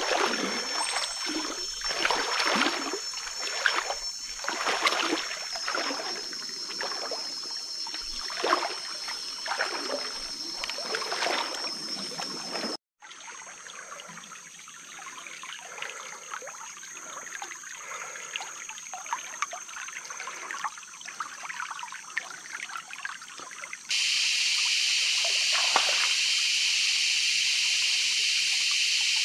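Water splashing and sloshing in a shallow river, a splash every second or so, over a thin steady high tone. After a break the splashing is fainter, and near the end a loud steady hiss takes over.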